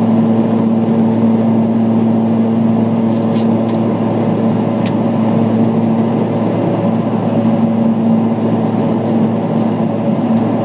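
Steady engine drone of a small aircraft in flight, heard inside the cabin: an even hum over rushing noise.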